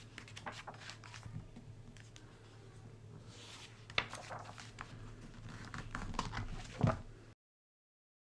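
Paper pages of a picture book turned by hand, rustling with scattered small clicks, one sharper snap about four seconds in and a louder knock near the end. The sound then cuts out suddenly.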